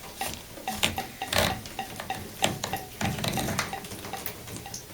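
Shower-massage head being unscrewed by hand: a run of irregular clicks and scrapes as the threaded fitting turns.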